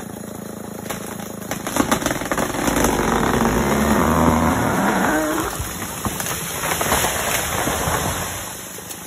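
Chainsaw felling a large tree: the saw's engine runs steadily, then from about a second and a half in comes a loud stretch of cracking and crashing wood that fades away near the end.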